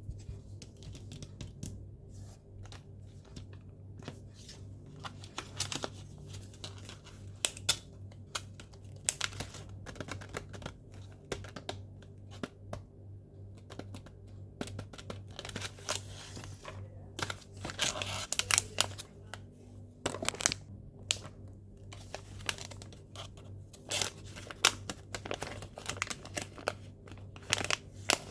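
Sylvanian Families toy packaging being opened by hand: irregular tearing and crinkling of paper and plastic with scattered clicks and handling noises, over a steady low hum.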